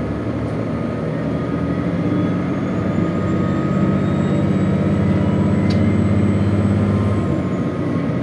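Inside a KiHa 201 series diesel railcar under way: steady diesel engine drone over the rumble of the wheels on the track. The engine note grows stronger through the middle and eases off near the end.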